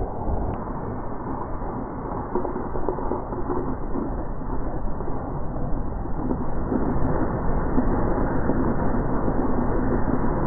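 Steady rushing noise of wind on an action camera's microphone and a board sliding over packed snow, a little louder from about halfway through.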